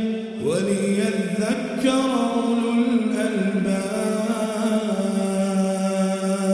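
A man's voice reciting the Quran in a slow, melodic chant, holding long notes, with a sliding rise in pitch about half a second in.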